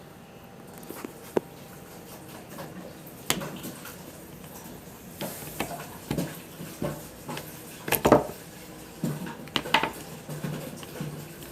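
Irregular clinks and knocks of hard objects being handled, with a loud cluster of knocks about eight seconds in.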